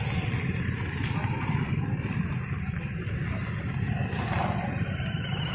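Engines of a convoy of motorcycles and scooters running along together, a steady low engine drone.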